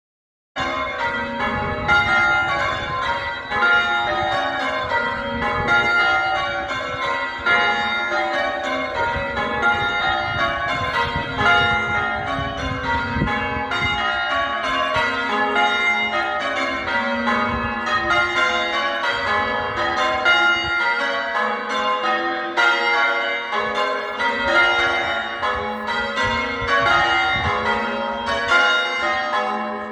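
Church tower bells being rung in English change ringing: a continuous run of overlapping bell strikes, each ringing on, that begins about half a second in.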